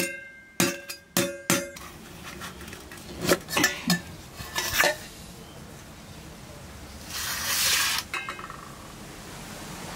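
Stainless-steel tiffin box and plate clinking and ringing as the box is handled on the plate and its lid worked open. A string of sharp metal clinks comes in the first couple of seconds, a few more follow, and a louder one-second rasping scrape comes about seven seconds in.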